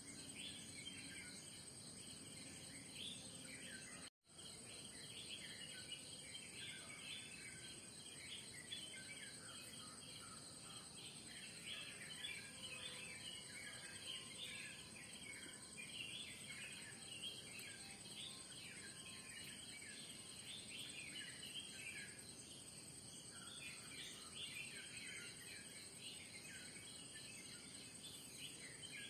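Many small birds chirping over a steady, high-pitched drone of crickets or other insects, all faint. The sound cuts out completely for an instant about four seconds in.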